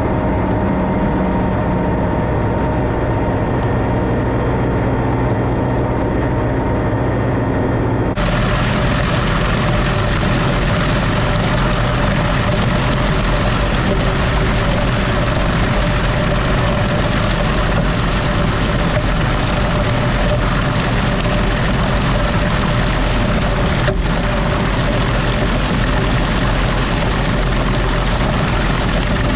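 Tractor engine running steadily; the sound changes abruptly about eight seconds in, as one stretch of running gives way to another.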